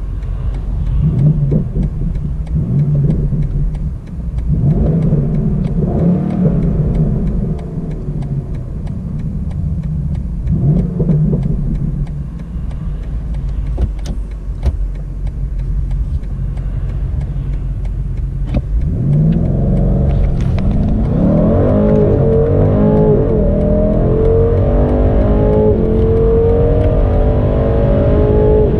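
BMW M850i xDrive's 4.4-litre twin-turbo V8 blipped in several short revs while stationary, then running steadily. About two-thirds of the way in it launches under launch control and pulls hard up through the gears, its pitch climbing with each gear and stepping down at the quick upshifts.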